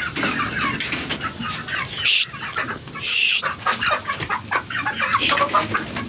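A flock of domestic chickens clucking busily while feeding on wheat grain, many short clucks overlapping, with two short rustles about two and three seconds in.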